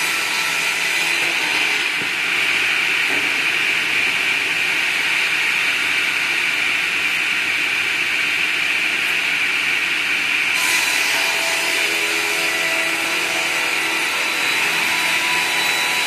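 Log push table saw's large circular blade running and cutting through a round log as it is fed on the sliding carriage: a steady, loud whine with a sawing hiss, turning hissier about ten seconds in.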